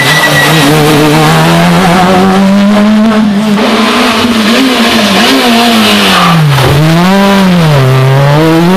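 Rally car engine at high revs on a stage. Its note holds fairly steady for the first few seconds, then drops sharply and climbs again twice near the end as the throttle is lifted and reapplied.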